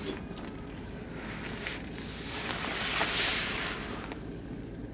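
Oak and beech wood fire burning in a barbecue grill, crackling with a few sharp pops. A rushing hiss swells up about two seconds in and fades away again after about three seconds.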